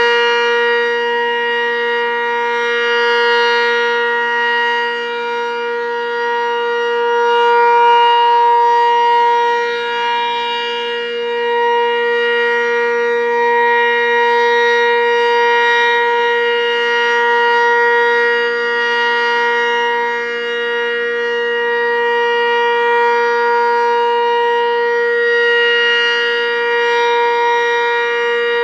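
Sentry 20V2T two-tone midsize outdoor warning siren running at full speed, holding a steady, loud chord whose volume swells and dips slowly every few seconds.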